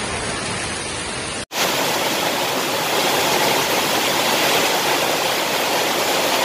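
Heavy rain pouring down, a steady hiss of water. It breaks off briefly about a second and a half in, then comes back a little louder and brighter.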